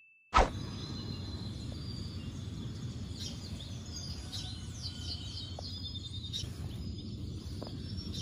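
Birds chirping in short, falling calls, mostly between about three and six seconds in, over a steady low rumble.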